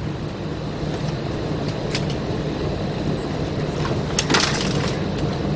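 Steady low hum in the cabin of an Airbus A320 parked at the gate before departure, with a few faint clicks and a brief rattle about four seconds in.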